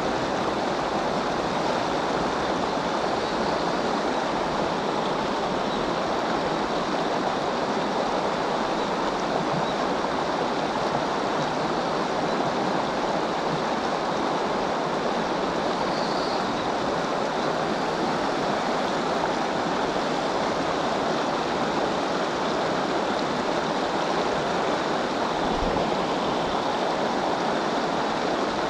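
Steady rush of river water running through the rapids of the Yoshino River.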